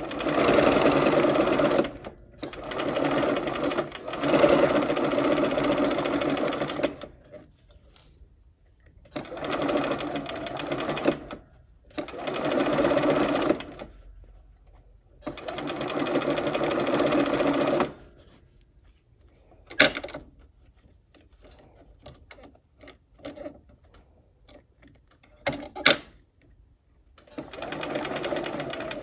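Electric sewing machine stitching a curved quilt seam in short stop-start runs of one to four seconds, paused while the fabric is eased around the curve. Two sharp clicks sound during the longer pause.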